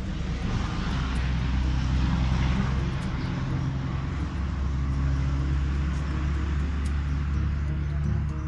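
Steady low engine drone with a rushing noise that builds over the first couple of seconds and eases off near the end.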